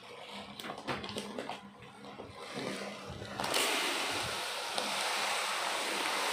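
Plastic bag of cat litter crinkling as it is handled. About three and a half seconds in, litter granules start pouring from the bag into a plastic litter box with a steady hiss.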